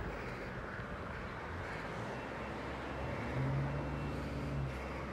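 Road traffic going by, a steady low rumble, with one vehicle's engine hum swelling a little past halfway and fading near the end.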